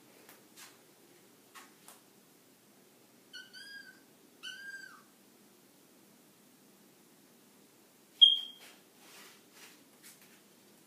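Kitten meowing twice, two short high calls about a second apart, with light taps and scuffles on a tile floor. About eight seconds in comes a brief, sharp high squeak, the loudest sound here.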